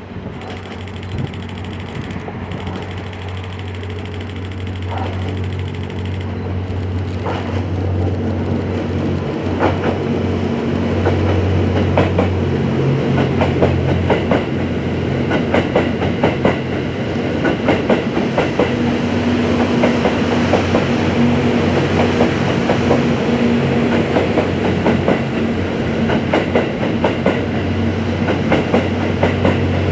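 Diesel train approaching and running past: a steady engine drone grows louder over the first ten seconds or so. Wheels then clatter over the rail joints in a rapid string of clicks as the cars go by.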